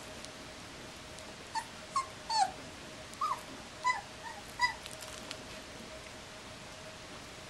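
Three-week-old puppy whimpering: a string of about eight short, high whines over a few seconds, some dropping in pitch.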